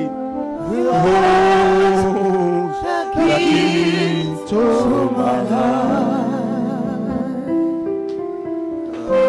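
Slow gospel worship singing over sustained keyboard chords, the voice holding long wavering notes.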